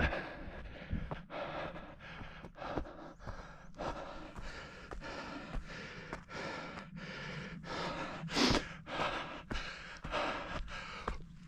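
A runner breathing hard in gasps, with footsteps.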